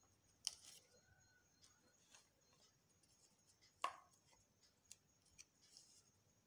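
Faint, sparse taps and light rustles of a pencil and a sheet of non-woven fabric being handled on a tabletop, with two sharper ticks, one about half a second in and a louder one near four seconds.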